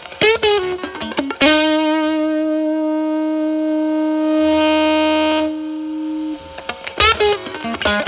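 Electric guitar (Telecaster) played through a ZVEX Fuzz Factory fuzz pedal into a Marshall Valvestate amp, the fuzz in an octave-fuzz setting cleaned up. A few quick notes, then one long held note that sustains for about five seconds before dying away, and a fast run of notes near the end.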